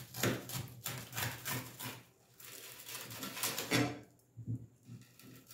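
A knife sawing through a crusty bolillo roll toasted on a comal, the crisp crust crunching and crackling with each stroke in a quick run for about four seconds, then a few fainter crackles near the end.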